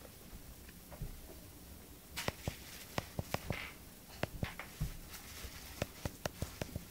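Irregular light taps and slaps of a baby's hands and knees on a wooden floor as she crawls, with quiet stretches between.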